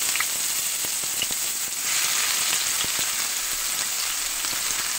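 Freshly added chopped onion and whole cumin seeds sizzling steadily in hot oil in a frying pan, with a few small crackling pops.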